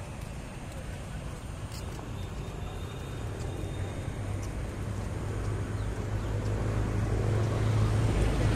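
Road traffic on a bridge: a low engine rumble under a steady hiss of traffic, growing steadily louder through the clip as a vehicle comes close.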